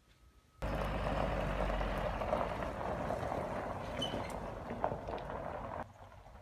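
An engine running steadily, cut in abruptly about half a second in and cut off abruptly near the end.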